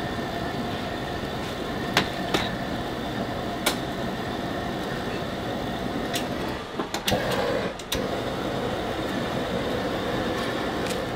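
Steady rushing roar of a gas-fired charcoal-lighting stove, broken by a few sharp metal clinks. About seven seconds in comes a short clatter of glowing lump charcoal being moved about in a metal pot.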